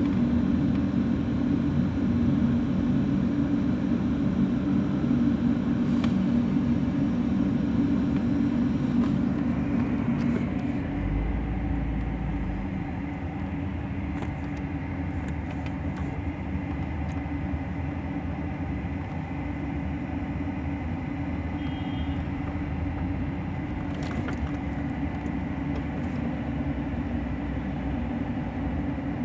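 Steady low rumble of a car's engine and road noise heard from inside the cabin, easing a little about ten seconds in.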